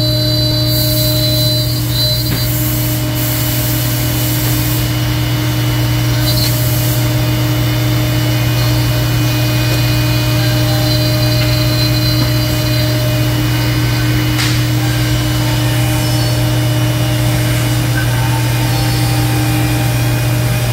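CNC router cutting plywood: the spindle runs steadily and the bit cuts through the wood under a brush dust shoe with dust extraction. A strong, steady low hum runs under it, with brief rises in hiss.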